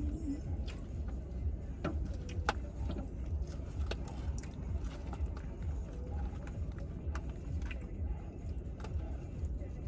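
Eating in a car: scattered light clicks and scrapes of utensils in takeout salad containers, with chewing, over a steady low rumble of the car idling.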